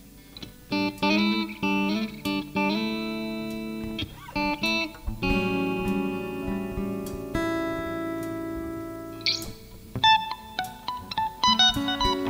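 Live band's instrumental intro on acoustic and electric guitars, heard through a rough mixing-desk feed: repeated ringing chords, then long held chords, then quicker picked notes from about ten seconds in.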